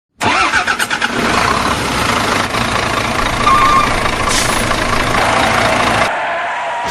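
Truck engine running steadily and loudly, its higher hiss dropping away about six seconds in.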